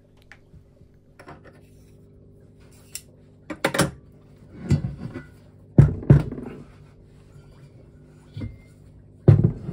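Cast-iron side housings of a Mazda RX-8's 13B rotary engine being handled and shifted on a workbench: a series of metal clunks and knocks, the loudest about six seconds in and again near the end.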